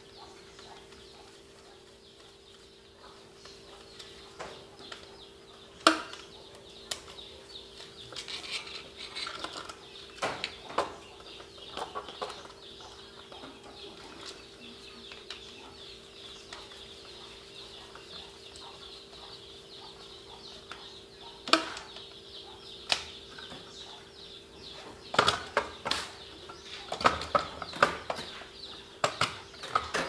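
Gloved hands working inside a metal plug-in circuit breaker panel: scattered sharp clicks and knocks of a tool, wires and breakers against the steel box, coming thicker near the end, over a steady hum.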